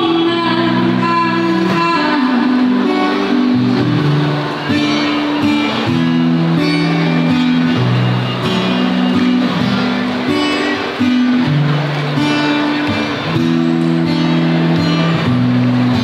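Amplified acoustic guitar strumming chords through a PA speaker, with a new chord every second or two.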